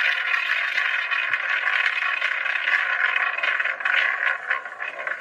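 Spinning prize-wheel sound effect: a fast, continuous run of clicks as the wheel turns.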